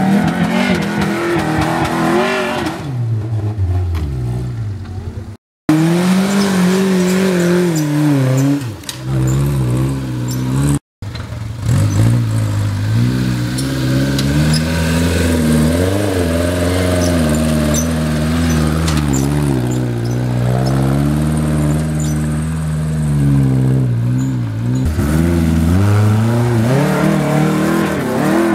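Off-road 4x4 truck engines revving up and down under load as the trucks climb and crawl steep dirt slopes, the pitch rising and falling again and again. The sound breaks off twice, briefly.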